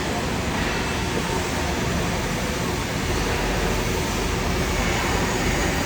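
Steady hiss and rumble of argon (TIG) welding on a pipe joint, over constant workshop noise.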